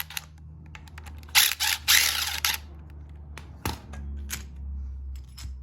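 A power tool runs in a few short bursts about a second and a half in, loosening the engine mount bolts, followed by a few sharp clicks of metal tools.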